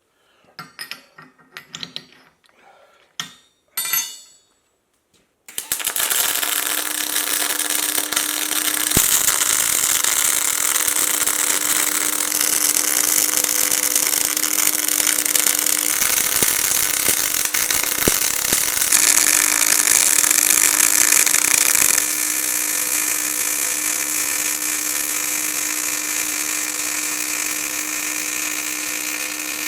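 A few light knocks and clicks of metal being handled, then about five seconds in a handheld electric power tool starts and runs steadily on steel, with a steady hum under a loud bright hiss. Its level steps up and down a couple of times.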